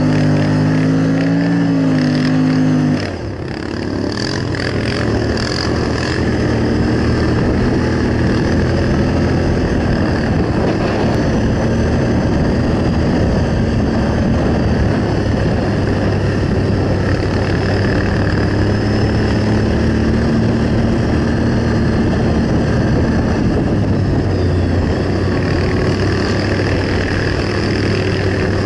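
Snowmobile engine running under way on a snow trail. The engine eases off about three seconds in, then runs on steadily at a lower note.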